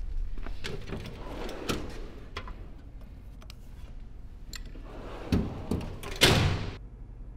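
Air tools being handled in a metal tool-chest drawer: scattered clicks and clanks of metal on metal. Near the end comes a louder, longer sliding sound, like the drawer running shut.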